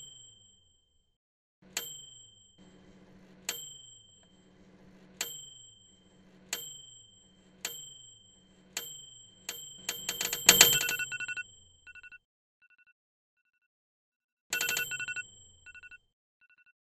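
A microwave's ping chime strikes again and again, the pings coming faster and faster with a faint low hum between them, until they bunch into a rapid jangle of pings about ten seconds in. The pings then give way to an electronic alarm clock beeping in short rapid bursts.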